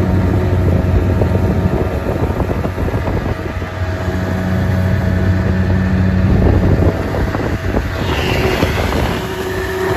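A boat's outboard motor running steadily while underway, with wind buffeting the microphone and water rushing past the hull.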